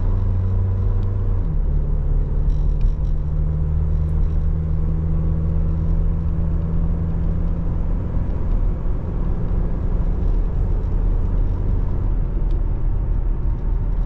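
2023 Toyota Tacoma's 2.7-litre four-cylinder engine heard from inside the cab while the truck accelerates. Its note steps down about a second and a half in as it shifts up a gear, then holds steady.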